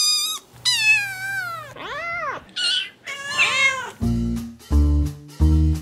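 A kitten's high-pitched meow, followed by four more meows that rise and fall in pitch. About four seconds in, upbeat music with a steady beat starts.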